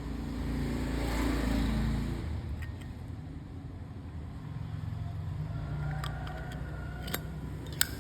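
A low engine rumble for the first two seconds, then a few sharp metallic clicks, most of them near the end, as a Zippo lighter is handled.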